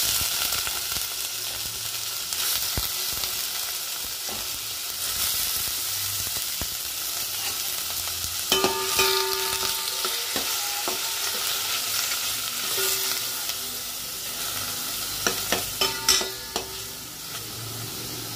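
Paneer cubes sizzling as they fry in melted ghee in a stainless steel pan, stirred with a metal spatula. The spatula scrapes and clinks against the pan, with sharp knocks that ring briefly about halfway through and again a few times near the end.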